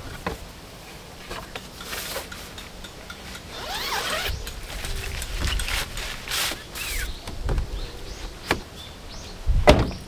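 Rustling, scraping and sliding noises of things being handled, with a few short squeaks about four seconds in and a sharp knock near the end, the loudest sound.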